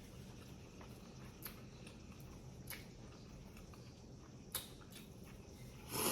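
Faint mouth sounds of someone chewing a grinder sandwich: a few soft, scattered clicks and smacks, with one louder, noisier sound just before the end.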